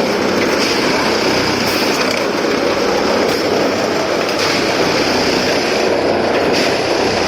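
Railway ballast tamping machine working: a steady, loud, continuous mechanical din.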